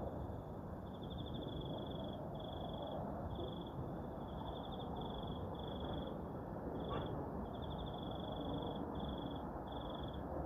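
Insects chirping in short, high-pitched trills, one after another with brief gaps, over a steady low rumbling noise.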